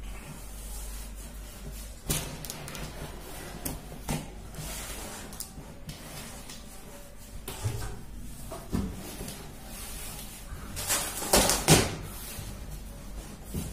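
Cardboard boxes being handled: a boxed PC case is slid and lifted out of a large corrugated shipping carton, with scraping and several dull knocks. Near the end comes a louder burst of stiff cardboard rubbing and flapping as a cardboard sheet is pulled from the carton.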